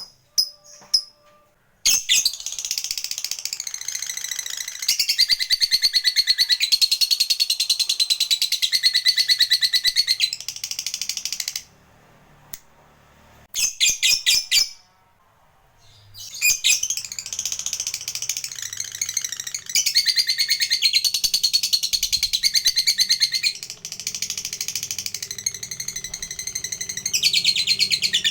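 Lovebird giving its long 'ngekek' song: two long, fast chattering trills, each running about ten seconds, with a few short sharp chirps in the pause between them.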